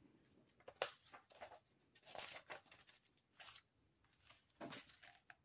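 Near silence with faint, short rustles of an old book's paper pages being turned and handled, several times.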